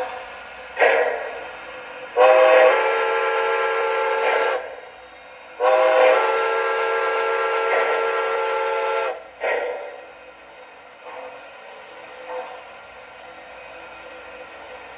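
Steam locomotive whistle from a custom sound file, played through an MTH O-scale model locomotive's onboard speaker: two long, steady blasts about a second apart. A short steam chuff comes just before the first blast and another after the second.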